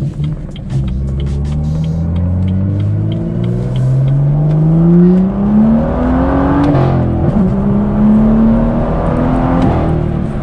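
BMW M2's N55 turbocharged straight-six with a catless downpipe, heard from inside the cabin, accelerating hard. The revs climb through one gear, drop at a shift about seven seconds in, then climb again in the next gear.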